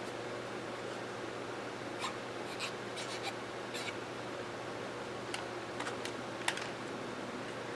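Light scrapes and small clicks of the Mossberg 464 rifle's breech bolt parts being handled and cleaned, scattered and irregular, over a steady background hum.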